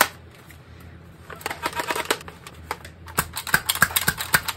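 Nerf Hornet dart blaster being worked by hand: a quick run of sharp plastic clicks and rattles that starts about a second in.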